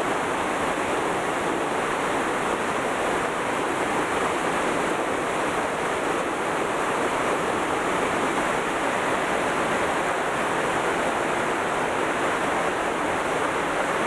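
A rocky mountain river rushing over boulders in white-water rapids, as a steady, unbroken rush of water.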